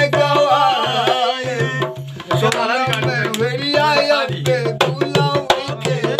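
A man singing an Aalha folk ballad in a wavering, ornamented line, accompanied by a dholak, a rope-tensioned two-headed barrel drum, beaten in a steady rhythm. The drum drops out briefly about two seconds in.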